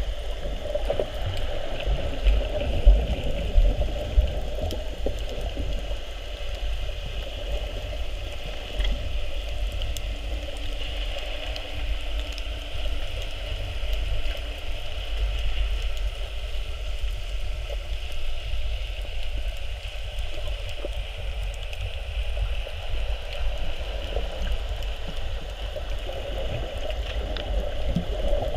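Muffled underwater sound picked up by a camera in a waterproof housing: a steady low rumble and water wash, with a few dull knocks about three to four seconds in.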